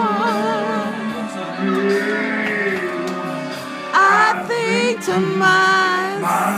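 A singer performing into a microphone over backing music, holding long notes with a wide vibrato.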